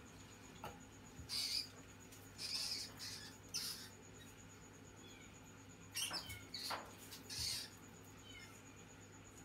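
A mouse squeaking: about six short, shrill squeaks in two clusters, three in the first half and three more about six seconds in.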